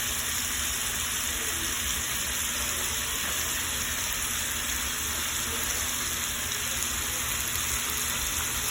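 Pieces of chicken breast frying in oil in a pan, a steady even sizzle, with a steady low hum underneath.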